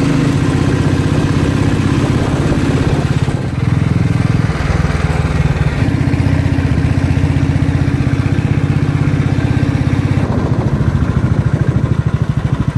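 Royal Enfield Bullet's single-cylinder engine running at riding speed with a steady, fast pulsing beat. The engine note changes abruptly twice, about three and a half seconds in and again near ten seconds.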